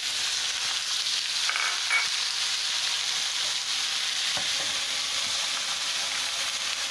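Malabar spinach and lentils sizzling in hot oil in a pan while being stirred, a steady frying hiss. A couple of brief utensil clinks come about a second and a half to two seconds in.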